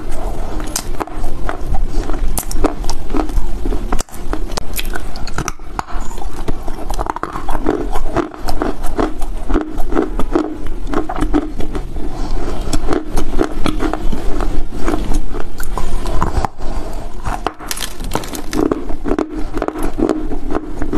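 Close-miked crunching and chewing of dry chunks of Chinese loess (earth) bitten off a hand-held piece: dense crisp cracks and crumbling, bite after bite, with short pauses about 4 s in and again around 16 s.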